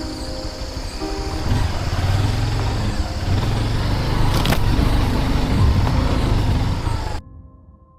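Motorcycle engine running, with a sharp click about four and a half seconds in; the sound cuts off abruptly a little after seven seconds.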